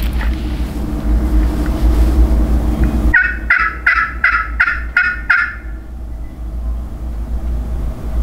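A wild turkey tom gobbling once, about three seconds in: a quick rattling run of notes lasting about two and a half seconds. A steady low rumble sits under it.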